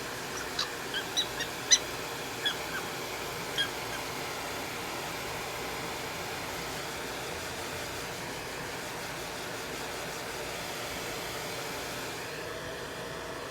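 Prairie dog giving about eight short, high squeaks in the first few seconds, over a steady hiss that runs on alone afterwards.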